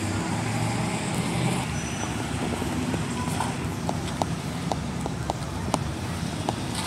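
A car engine running at low revs, a steady low rumble that fades into general traffic noise, with a few sharp clicks and knocks in the second half.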